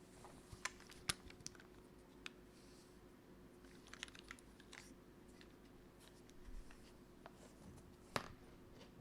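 Scattered, unhurried keystrokes on a 60% mechanical keyboard with lubed linear MX Black switches in a polycarbonate plate and GMK keycaps: irregular sharp clacks, with a small cluster about four seconds in and the loudest ones about a second in and near the end.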